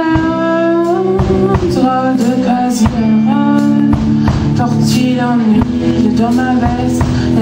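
Live song: a singer holding long notes that slide in pitch, over guitar accompaniment.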